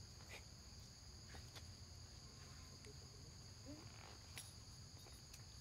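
Faint, steady insect chorus, crickets or cicadas, holding two high tones, with a few faint scattered clicks.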